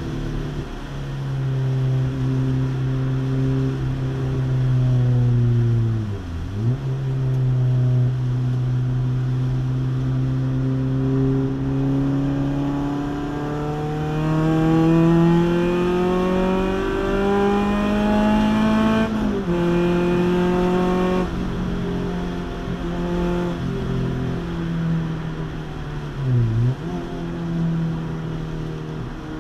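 2005 Renault Clio Trophy's 2.0-litre four-cylinder engine heard from inside the cabin while lapping a track. It holds steady, dips sharply in revs about six seconds in and again near the end, and in the middle climbs steadily for several seconds before an upshift drops the revs abruptly.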